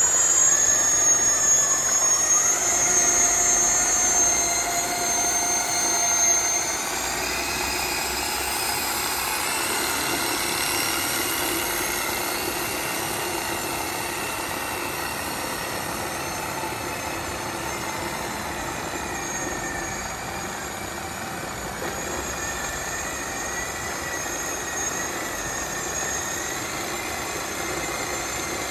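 Remote-controlled helicopter tug driving under load: several whining tones that slowly shift in pitch over a steady mechanical hum. A high whine stops about six or seven seconds in, and the sound then runs a little quieter.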